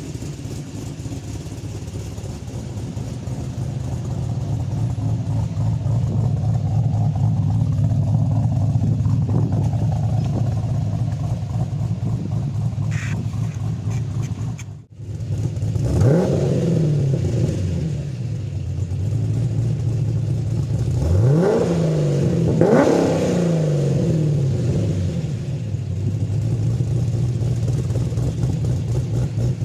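Holden VF's LS3 6.2-litre V8 with an aftermarket exhaust idling steadily, then, after a break, blipped three times: the pitch climbs and drops back each time before it settles into idle again.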